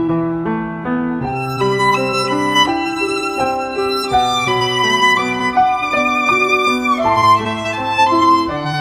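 Background music: a melody on violin over sustained accompanying notes, moving note by note at a steady pace.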